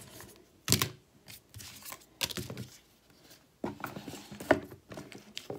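Packaging being handled and opened by hand: a series of short rustles, crinkles and light knocks of cardboard and plastic, the sharpest about three quarters of a second in.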